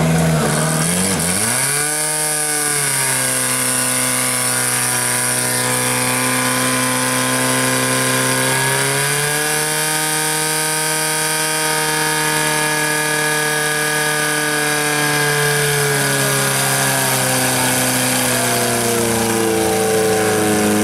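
Portable fire pump's engine running hard while pumping water through the attack hoses. Its pitch dips sharply about a second and a half in and then settles, climbs again about nine seconds in, drops around sixteen seconds and rises once more near the end.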